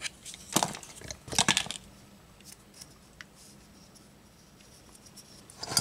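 Handling noises from a plastic laminate trimmer and its single-edge razor blade: two short scraping rustles, about half a second and a second and a half in, and a few small clicks.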